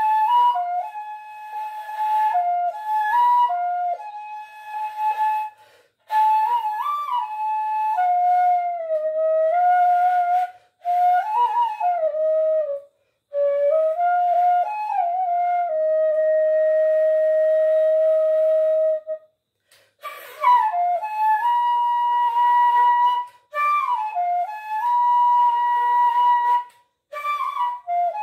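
Bamboo transverse flute played solo: a slow melody in phrases broken by short pauses for breath, with notes sliding into one another. Past the middle one note is held for about three seconds.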